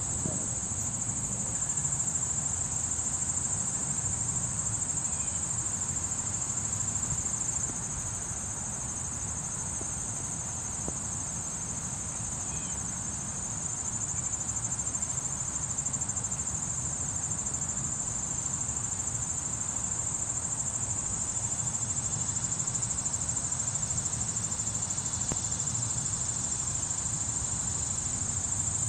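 A steady, high-pitched chorus of summer insects that does not let up, with a low rumble beneath it.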